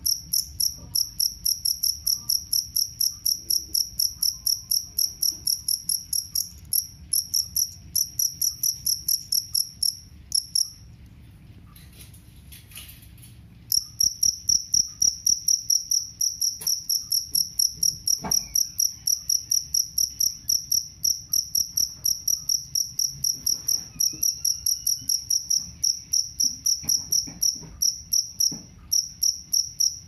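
Male two-spotted field cricket (jangkrik kalung) calling: a long run of high, evenly spaced chirps, about three a second, that breaks off for about three seconds near the middle and then resumes.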